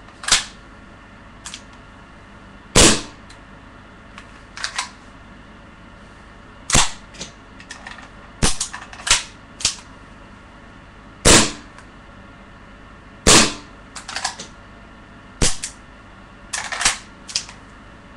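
CZ75 gas blowback airsoft pistol fired in single action: about ten sharp cracks at irregular gaps of one to four seconds, a quick run of three near the middle, with fainter clicks between the shots.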